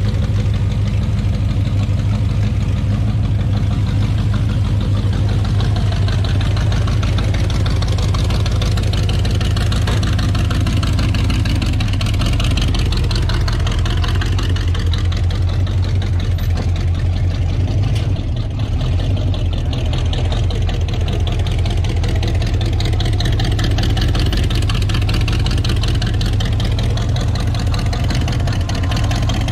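An engine idling steadily, with no revving.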